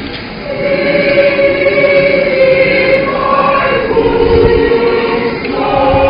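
Church choir singing in parts, holding long sustained notes, with a new phrase swelling in about half a second in.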